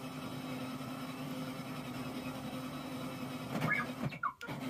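R2-D2 replica's dome motor, a small DC gearmotor, running steadily with a constant hum as it turns the dome through its slip ring. A few short high chirps come in near the end.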